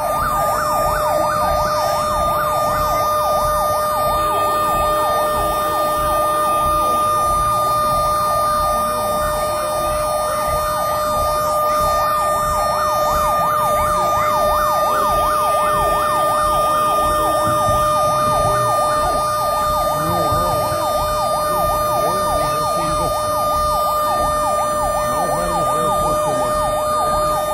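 Fire engine siren sounding continuously in a rapid rising-and-falling yelp over a steady high tone.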